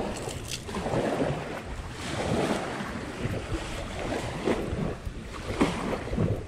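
Wind buffeting the microphone in uneven gusts, with a few brief knocks and rustles.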